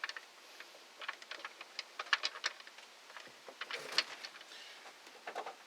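Irregular light clicks and ticks of screws being driven into the plastic housing of a cordless hedge trimmer during reassembly.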